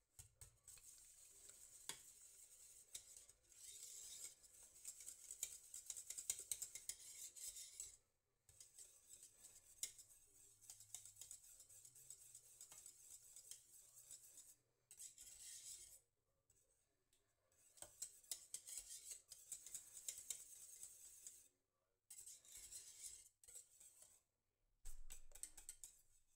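Wire whisk beating a thick cheese mixture in a stainless steel saucepan, its wires scraping and ticking against the metal pot. The whisking comes in spells, stopping briefly several times.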